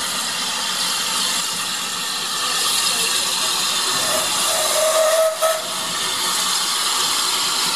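Small LNER Class Y7 0-4-0T steam tank engine standing with steam hissing steadily. A brief faint whistle sounds about five seconds in.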